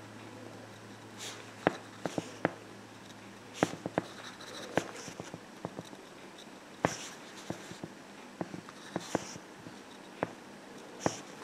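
Irregular small clicks and taps of a nail dotting tool and a wooden bead doll head being handled while dots are painted on, over a faint steady hiss.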